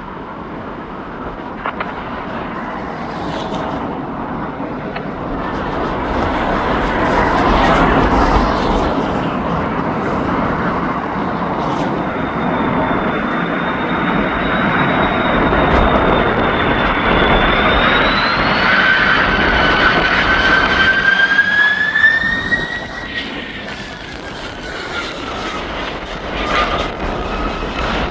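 Airbus A330 airliner's jet engines at go-around thrust passing: a broad rush that swells over several seconds, with a high whine that rises and then glides down in pitch near the end.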